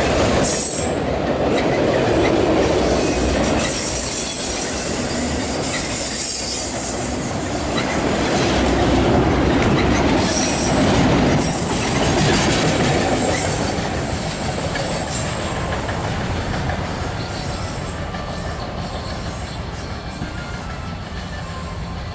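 CSX autorack freight train rolling past at close range: a steady rumble of wheels on rail with high wheel squeal at times. The sound fades over the last several seconds as the end of the train goes by.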